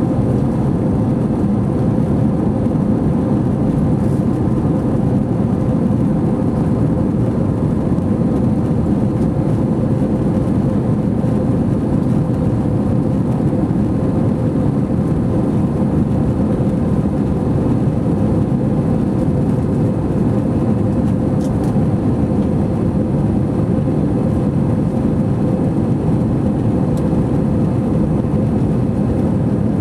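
Steady engine and airflow noise inside the cabin of an Airbus A321 in flight, with a faint constant hum over it.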